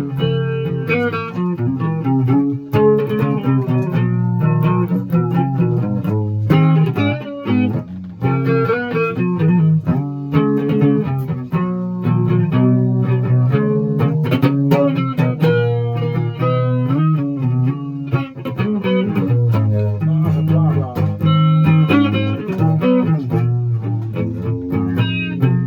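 Guitar being played, a continuous run of plucked notes with a heavy low end.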